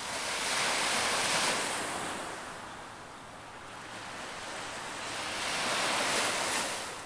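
Atlantic surf breaking over a rocky shore. Two waves rush in and wash back out, the first swelling about a second in and the second near the end.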